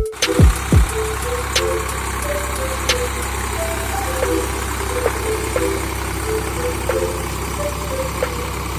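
Steady low engine hum, idling, with a simple tune of short electronic notes playing over it and a few light clicks.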